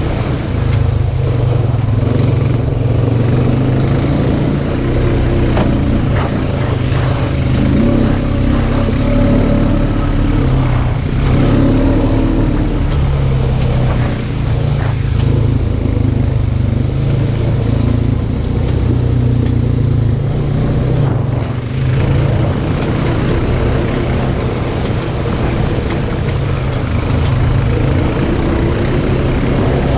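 Polaris RZR side-by-side's engine running, its revs rising and falling unevenly, with a few short knocks.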